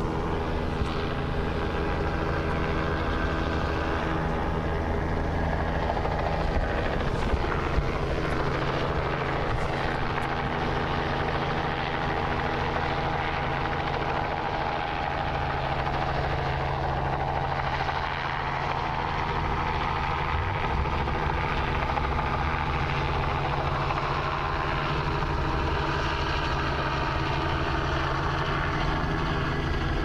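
Helicopter hovering overhead, a steady drone of rotor and engine with no change in level.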